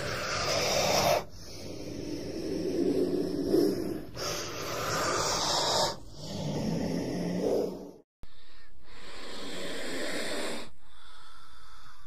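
King cobra hissing: a series of breathy hisses, each about two seconds long. After a brief dropout about two-thirds of the way in comes a steadier, longer hiss.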